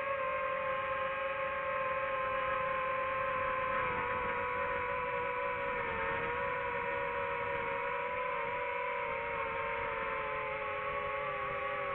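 DJI FPV drone's motors and propellers whining steadily in flight. The pitch sags slightly through the middle and rises again near the end as the throttle changes.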